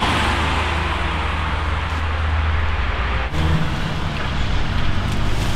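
Road traffic passing close by: a steady rush of tyre noise over a low engine rumble. It starts abruptly and cuts off just as abruptly near the end.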